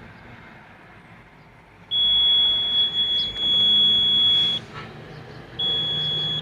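Komatsu PW180 wheeled excavator's warning buzzer sounding a steady high-pitched tone on switch-on: once for about two and a half seconds, then again about a second later. It is the warning that this machine gives for low brake oil pressure.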